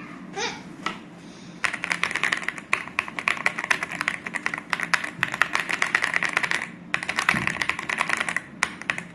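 Fast typing on an Ajazz AK820 Pro gasket-mounted mechanical keyboard: a dense run of key clicks that starts about a second and a half in, pauses briefly near the end, then resumes.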